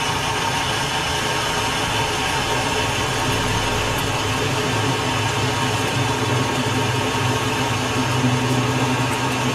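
Metal lathe running steadily, a constant motor hum under even machine noise.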